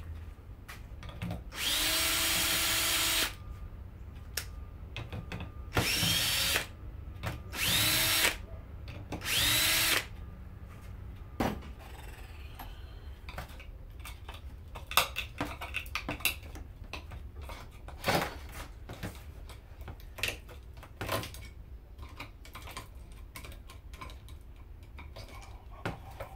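A power drill runs in four short bursts, each quickly spinning up in pitch, as parts are unscrewed. After that come scattered clicks and knocks of parts being handled.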